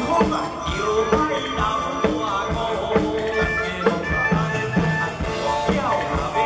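Live band music with a steady drumbeat and sustained keyboard tones, with a man singing into a microphone over it.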